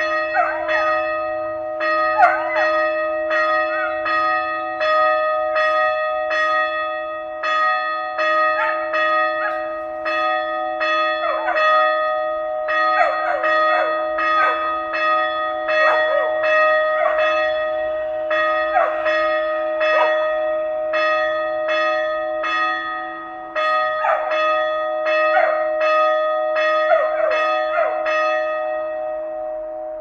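Small church bell rung in quick, even strokes, about two a second, its tone ringing on between strokes. The strokes stop near the end and the ringing dies away.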